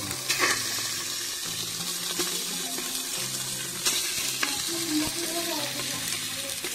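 Raw pork pieces sizzling steadily in a hot aluminium pressure cooker, with a few sharp knocks as more pieces are dropped in against the metal.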